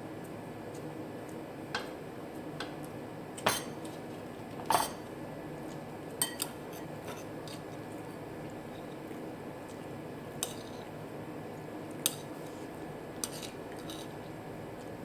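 Eating utensils clinking against a plate and dishes in scattered short knocks, about ten in all, the loudest near the middle, over a steady low room hiss.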